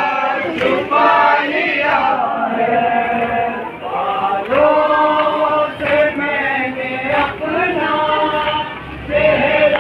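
A crowd of men chanting a mourning chant together, sung lines with long held notes that pause briefly twice.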